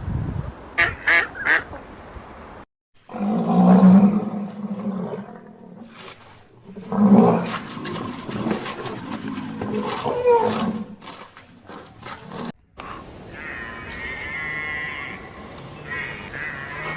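Animal calls cut together from several clips: three quick high calls about a second in, a noisier run of calls in the middle, and a long wavering call near the end.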